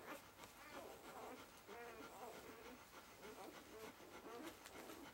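Newborn puppies giving faint, thin squeaks and whimpers: a few short calls that bend in pitch, spread through with pauses between them.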